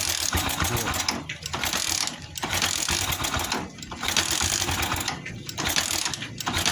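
Motorcycle engine being cranked over again and again without firing, in repeated bursts about a second long: the engine no longer starts.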